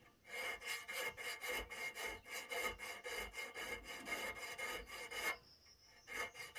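Fine needle file, cleaned of rust, filing a piece of metal in quick back-and-forth strokes, with a short break about a second before the end before the strokes start again. The file is sharp and cutting the metal.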